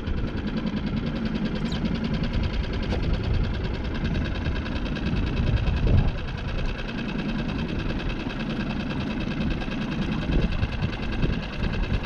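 Wind buffeting the microphone in an uneven low rumble, over a steady mechanical hum with a fine, even flutter.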